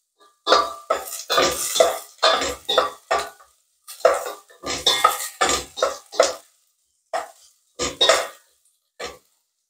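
Wooden spatula stirring sliced onions and ginger in a stainless steel pot, scraping and knocking against the pot's sides and bottom in repeated strokes, about two a second, as the aromatics are sautéed.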